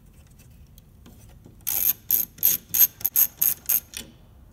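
Hand socket ratchet wrench clicking in quick strokes as it spins a nut off, about eight short ratcheting bursts beginning nearly two seconds in.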